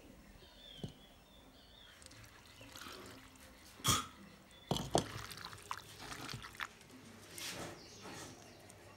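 A single sharp knock about four seconds in, then liquid poured from a clay bowl onto chopped onion and meat in another clay bowl, with small splashes and drips.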